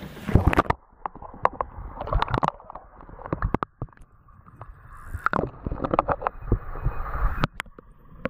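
Water sloshing and gurgling against a camera dipped in and out of a river at the waterline, with irregular knocks and clicks from the water and handling, the loudest about half a second in.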